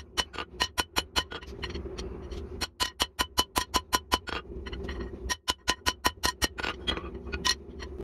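Rapid hammer blows on a red-hot jackhammer-bit tip on a steel anvil, drawing out the taper, about six or seven strikes a second with a bright metallic ring after each. The blows come in three runs, with short pauses about two and five seconds in.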